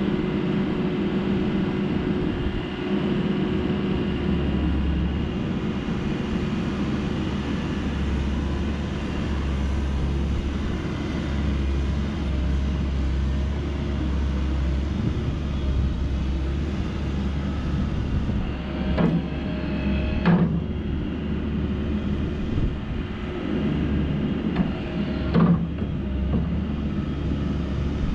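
Komatsu PW98MR-6 wheeled excavator's diesel engine running steadily while the boom slews and the bucket is tilted. Two sharp knocks come about two-thirds of the way through, and a third a few seconds later.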